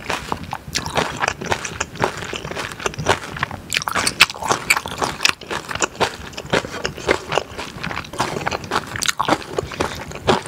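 Close-miked wet chewing mixed with the squish and scrape of a wooden spoon stirring saucy curry rice in a glass bowl: a dense run of small sticky clicks.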